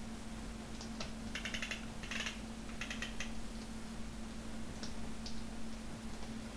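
Faint clicking of computer controls: single clicks with quick runs of ticks about one and a half and two seconds in, over a steady low electrical hum.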